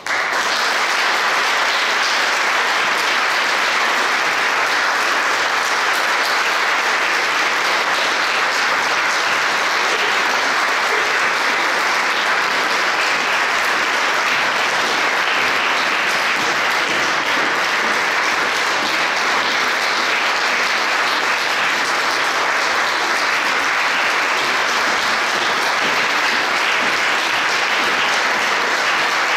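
Audience applauding, breaking out all at once and then holding steady.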